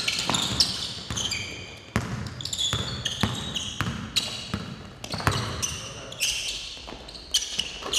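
Basketball dribbled hard on a hardwood gym floor in irregular bounces, mixed with sharp, short squeaks of sneakers cutting and sliding on the floor.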